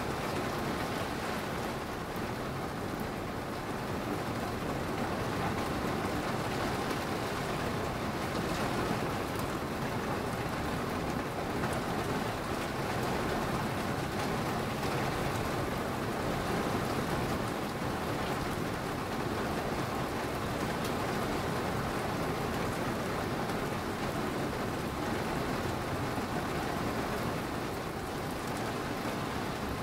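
Steady rain from a thunderstorm falling as an even hiss, with no clap of thunder.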